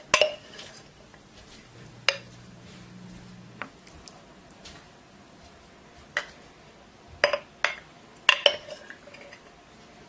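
Metal spoon clinking against a porcelain teacup while grapefruit pieces are spooned in: a scatter of sharp clinks, several close together near the end.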